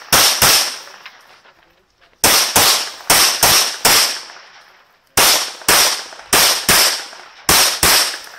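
Pistol fired in rapid strings of shots, about three a second, in three bursts separated by pauses of about a second while the shooter moves to new positions in the stage.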